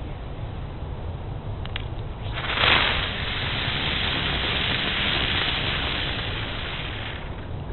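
A firework going off with a sudden whoosh about two and a half seconds in, then a steady loud hiss of spraying sparks for about four seconds before fading. A couple of faint clicks come just before it, over a low steady rumble.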